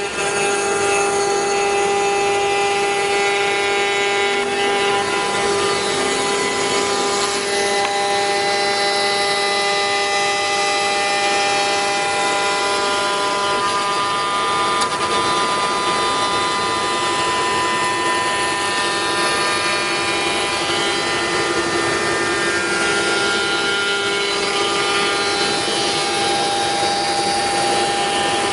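5-axis CNC router's high-speed spindle running with a steady whine while its end mill cuts along the edge of a moulded workpiece, with cutting noise under the whine.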